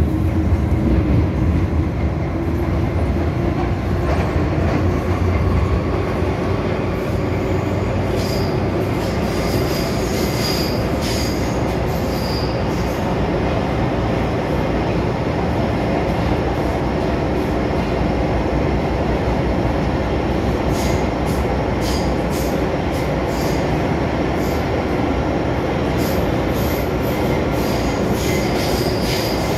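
MTR M-Train (Metro-Cammell electric multiple unit) running at speed, heard from inside the car by the doors: a steady loud rumble, with high-pitched wheel squeal coming and going about eight seconds in and again through the last third.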